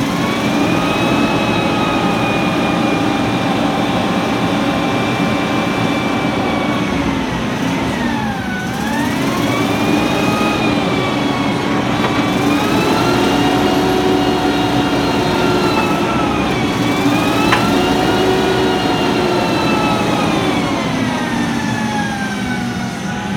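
The 318 V8 gasoline engine of a 1972 LOED 552 forklift running at raised revs, working the hydraulics as the telescoping mast is tilted forward and lowered. The engine speed dips twice and falls back near the end.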